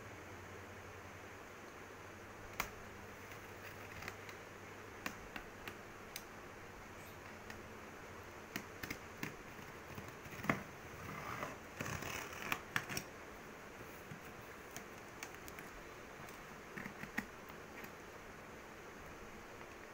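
Packing tape on a cardboard box being scored and slit with a small hand tool: scattered scratches and clicks, with a longer scratchy stretch about twelve seconds in.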